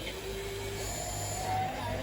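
Small electric motors of a radio-controlled toy excavator whining as it works, with steady tones that step between pitches as different motors start and stop.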